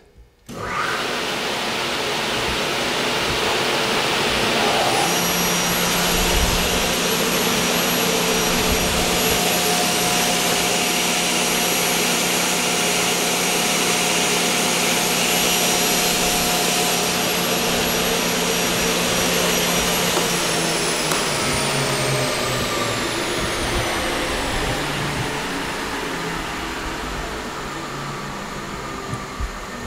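Altendorf F-45 sliding table saw started up: the main saw motor spins up to a steady running hum at 3600 RPM, and about five seconds in the scoring saw motor joins with a high steady whine. About twenty seconds in the motors are switched off and the whine falls away as the blades spin down.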